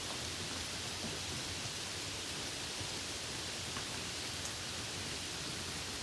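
Steady rain falling, an even hiss with a few faint ticks of single drops.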